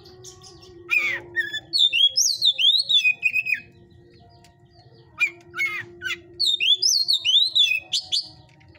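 Oriental magpie-robin (kacer) singing in the fired-up state that breeders call 'panas' (hot): bursts of rapid, sliding whistled phrases, with a pause of over a second midway.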